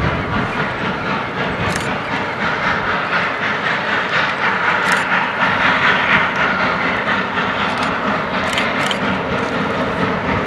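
Geared steam locomotive approaching under steam, a steady run of exhaust and steam noise that swells a little about halfway through.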